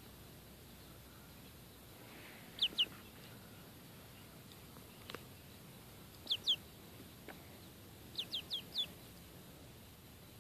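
Young chicken peeping: short, falling peeps, twice in pairs and then four in quick succession near the end.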